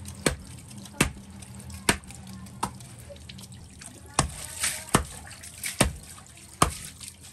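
Steady chopping: sharp strikes about once a second, like a heavy blade coming down on a wooden chopping block. Water trickles under them.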